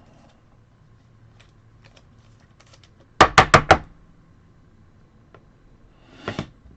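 A quick run of about five sharp knocks about three seconds in, with a couple of fainter ones near the end and light ticks between, from trading cards and packs being handled and tapped on a tabletop.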